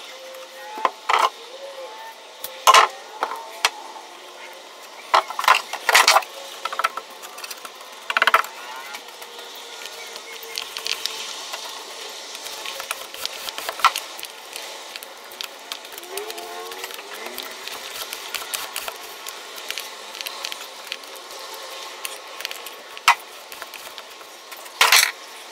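Scattered sharp clicks and knocks of hand work, tools and materials being handled while fiberglass tape is laid over a plywood seam and wetted out with epoxy by roller, over a steady hiss. The loudest knock comes near the end.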